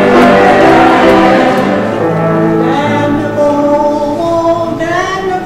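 Mixed choir of men's and women's voices singing a Christmas song together, holding long notes.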